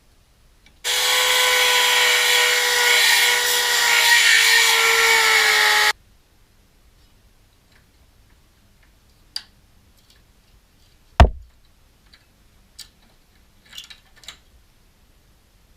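Handheld electric power tool grinding on car body steel for about five seconds, a high-pitched whine with hiss that stops abruptly. Later a single heavy thump and a few light clicks and taps.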